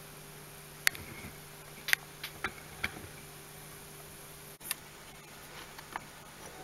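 A handful of sharp, light clicks and taps from small objects being handled on a bench, most of them in the first half, over a steady low hum.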